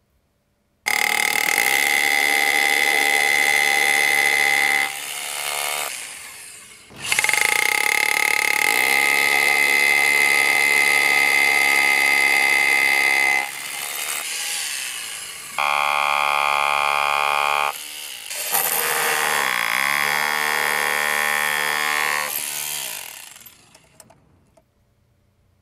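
Electric SDS-Plus rotary hammer drilling into concrete with a masonry bit, then chiselling at a concrete slab edge. The hammering motor gives a steady high whine. It winds down and starts up again a few times, with a changing pitch in the later chiselling run, then fades out.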